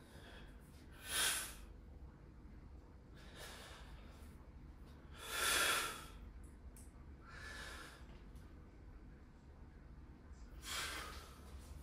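A man's hard breaths out while holding flexed bodybuilding poses. There is a short sharp one about a second in, a longer, louder one near the middle, and further breaths later and near the end.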